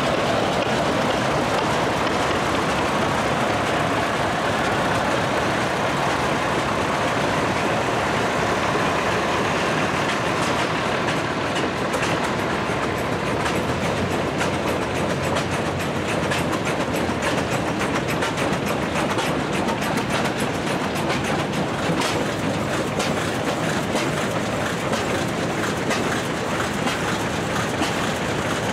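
Vintage farm tractors running at low speed as they drive past in a line, a steady mix of engine noise. From about ten seconds in, a dense run of sharp ticks and clatter joins it as the early steel-wheeled tractors pass.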